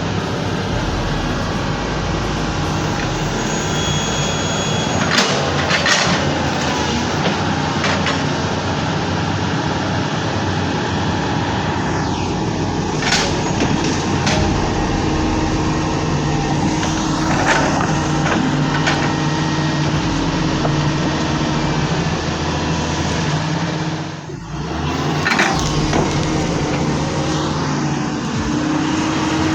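Excavator's diesel engine running steadily under load, with several sharp knocks and clanks from the working machine.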